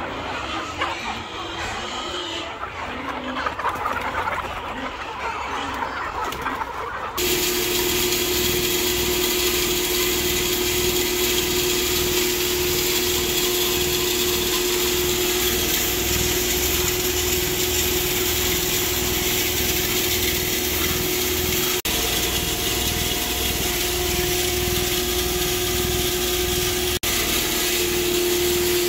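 A flock of chickens clucking for the first several seconds. About seven seconds in, this gives way abruptly to an electric feed mill running with a steady loud hum and a constant tone, broken briefly twice.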